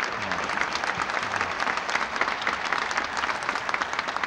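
Audience applauding: a large crowd clapping steadily and densely.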